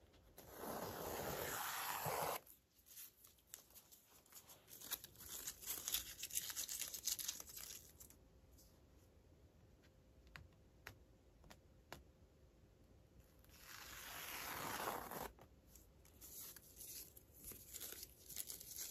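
Masking tape being peeled off denim fabric: two long ripping peels, one near the start and one about two-thirds of the way through, with crackly rustling of the tape between them.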